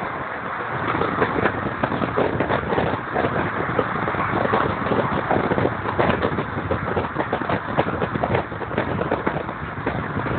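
Road and wind noise in a car at motorway speed, a steady rush broken by rapid, irregular crackling from wind buffeting the microphone.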